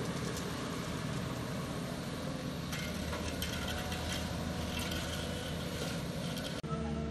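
Volvo crawler excavator's diesel engine running under work, a steady rumble with hiss. A rattly clatter joins about three seconds in. Near the end the sound changes abruptly to a steadier, lower engine hum.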